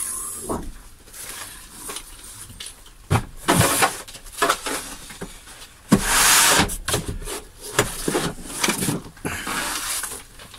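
Irregular knocks, thumps and scraping as building materials are handled and slid about in the cargo area of a small van, with a louder scraping rustle about six seconds in.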